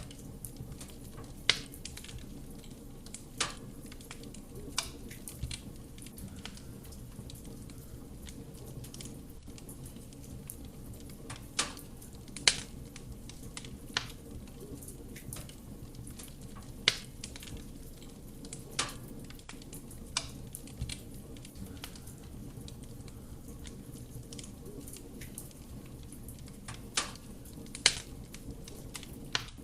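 Wood fire burning in a fireplace: a steady low rumble of flame with irregular sharp crackles and pops from the burning wood, a dozen or so, a few of them loud.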